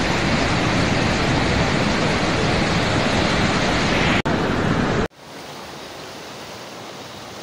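A river in violent flood rushing past, a loud, even rush of water. About five seconds in it cuts off suddenly to a quieter, steady rush of floodwater.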